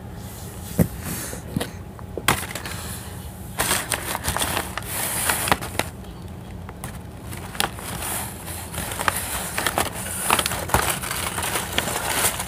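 Irregular clicks, taps and rustling, sparse at first and denser from about three and a half seconds in, over a steady low hum.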